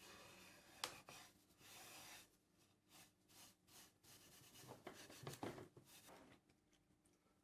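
Faint, irregular scratchy rubbing strokes against a hard surface, with a sharp click just under a second in. The strokes are loudest around five seconds in and stop about a second before the end.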